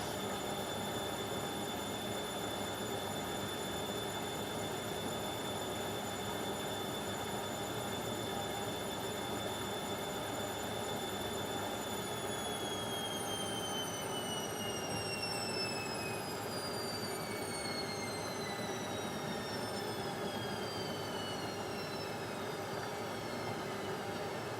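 Indesit washing machine spinning, its motor giving a high whine over a steady rushing hum. About halfway through, the whine starts to fall steadily in pitch as the drum slows down.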